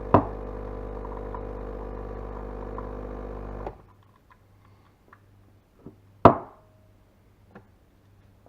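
DeLonghi EC151 espresso machine's pump humming steadily, then cutting off suddenly a little under halfway through; a sharp click comes just after the start. A few seconds after the pump stops there is a single loud knock and a few light taps.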